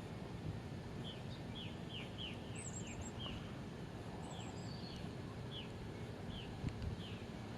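Small birds chirping: short, falling chirps repeated every half second or so, with a couple of higher, quicker notes, over steady outdoor background noise.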